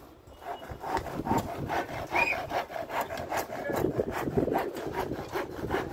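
Hand sawing in quick, even back-and-forth strokes, about four a second.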